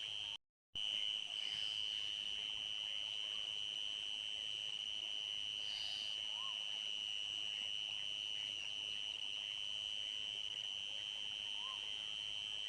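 Night insects, crickets, trilling in a steady unbroken high-pitched chorus that cuts out completely for a moment near the start. Two faint short rising-and-falling calls sound in the background, one midway and one near the end.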